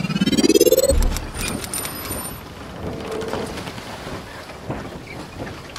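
Logo-intro sound effects: a rising whoosh over the first second that ends in a low boom, followed by a brief high sparkling jingle, then a softer hissing, crackly texture.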